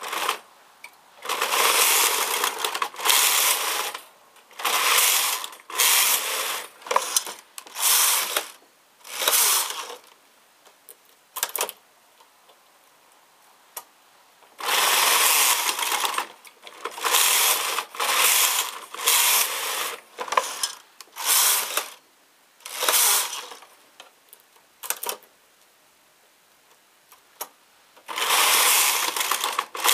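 Knitting machine carriage being slid back and forth across the needle bed, a rasping clatter of the needles on each pass. The passes come in quick runs, each under about a second and a half, with pauses between them.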